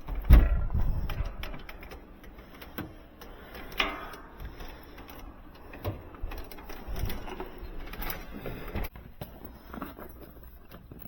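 A heavy thump just after the start, then scattered knocks, clatters and rattles every second or two, as someone climbs down out of an attic.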